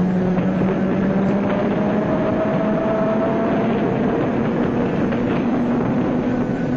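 Loud, steady city traffic din with a few long held tones over it.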